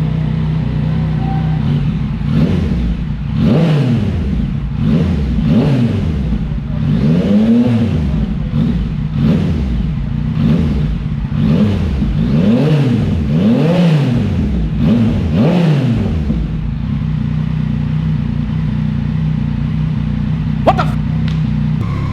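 Yamaha XSR900's three-cylinder engine idling through a full Akrapovic titanium twin-pipe exhaust with its baffles removed, then revved about ten times in quick blips, each rising and falling, before settling back to a steady idle. A single sharp click near the end.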